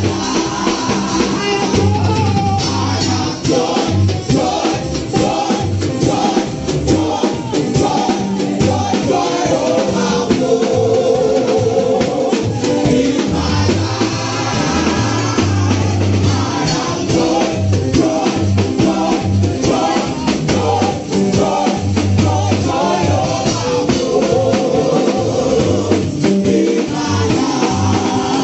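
Upbeat gospel praise music: singing into a microphone over a band with drums, at a steady dance beat.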